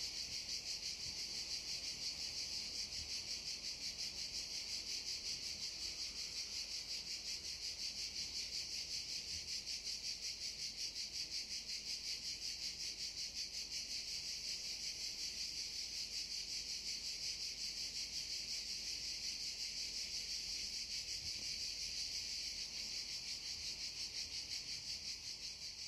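Cicadas singing in a dense chorus: an unbroken, high, finely pulsing buzz that begins to fade near the end.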